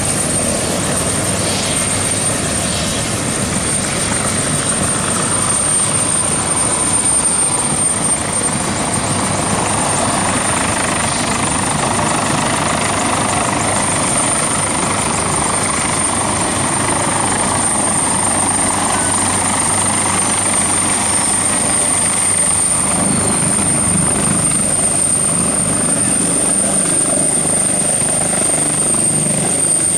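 AgustaWestland AW139 helicopter's main rotor and twin turboshaft engines running as it flies in low and comes to a hover just above the ground, with a steady high turbine whine over the rotor noise.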